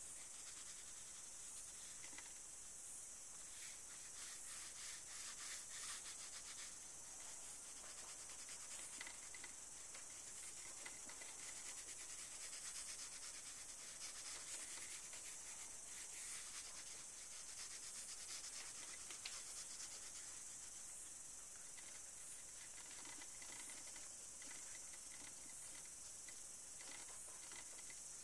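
Faint rubbing and scratching of a white pastel stick shaded back and forth across black paper in many quick strokes, over a steady hiss.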